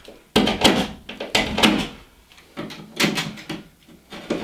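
A blade cutting through drywall in several back-and-forth strokes, each less than a second long, with short pauses between.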